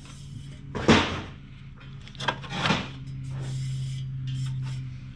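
Short scraping knocks of parts or tools being handled, the loudest about a second in and two more a little past two seconds, over a steady low hum.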